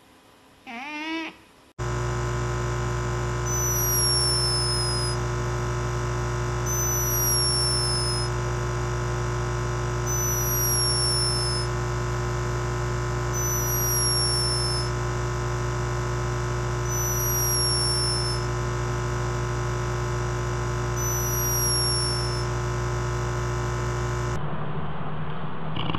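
Steady electronic drone of many held tones, swelling gently about every four seconds, with a short falling chirp repeating about every three and a half seconds. Near the end it cuts to a cat purring.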